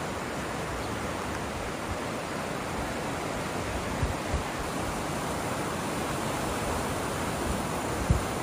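Steady rushing of the swollen, fast-flowing River Creuse in flood. A few brief low thumps come about four seconds in and again near the end.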